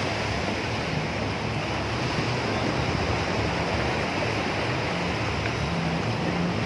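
Steady, even rush of sea surf and wind, with wind catching the microphone.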